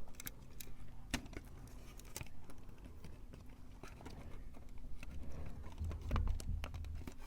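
Scattered light clicks and taps from wires and a connector being handled close to the microphone, over a faint steady low hum. No alarm beep sounds.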